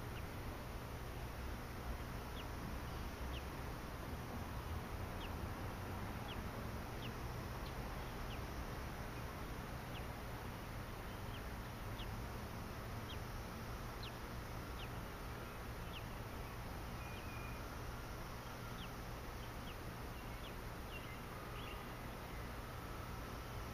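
Quiet outdoor ambience: a steady low hum with faint, short high bird chirps scattered irregularly, roughly one a second.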